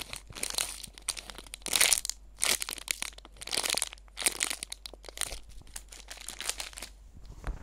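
Plastic packaging crinkling as it is handled, in a run of separate crackly bursts.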